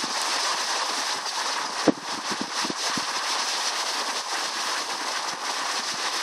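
River water rushing steadily, with gusts of wind buffeting the microphone and a brief thump about two seconds in.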